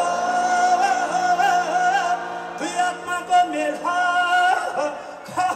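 Live folk-rock band playing, with a high vocal line held in long, wavering notes over sustained low chords.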